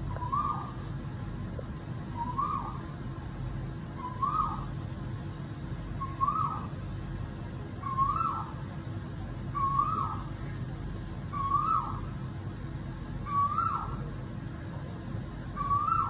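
Male Asian koel calling: a loud, repeated two-part note that rises and then drops, about once every two seconds.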